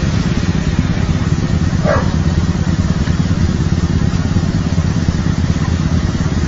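Motor vehicle engine idling close by: a steady low rumble with rapid pulsing. A brief higher-pitched cry cuts in once, about two seconds in.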